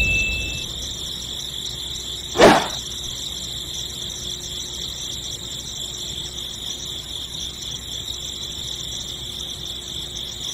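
Rubber-band drive belt being stretched and fitted by hand onto a small motor pulley and a plastic mill pulley, with one sharp snap or click about two and a half seconds in, over a steady high hiss.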